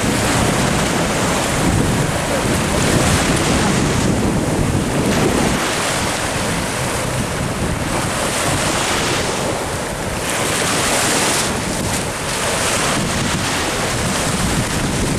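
Wind buffeting the microphone over the wash of surf on the beach. The low buffeting is heaviest for the first five seconds or so, then eases, leaving the hiss of the waves swelling and falling.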